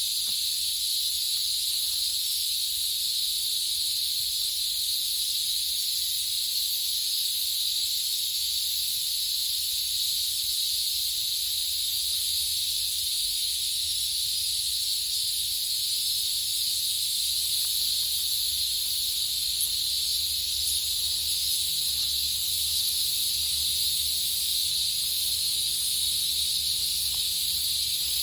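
A dense chorus of cicadas, a steady high-pitched buzzing that holds unbroken at an even level.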